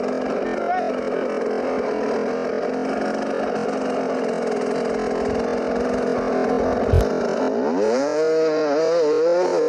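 Enduro dirt bike engine running at a steady pitch. A sharp knock comes about seven seconds in, then the engine revs up quickly and its pitch wavers up and down as the throttle is worked.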